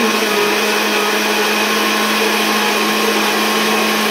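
Countertop electric blender running steadily with an even, unchanging hum, blending a liquid guava punch.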